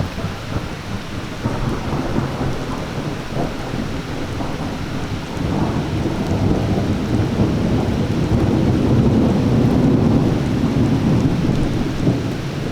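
Long rolling thunder rumbling over steady, heavy rain. It starts with a sudden crack, then builds from about halfway through to its loudest a little before the end, and eases slightly at the very end.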